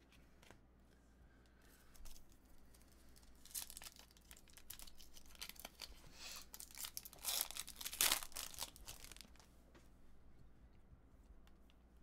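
Bowman Chrome baseball card pack being torn open, its foil wrapper tearing and crinkling in a run of ripping, rustling noises. They start a few seconds in, last about five seconds, and are loudest near the end of the run.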